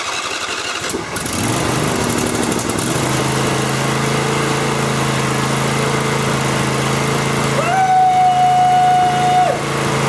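Briggs & Stratton V-twin Intek engine, freshly refitted with a new sump gasket, catching and speeding up over the first few seconds, then running steadily. A long held high tone sounds over it for about two seconds near the end.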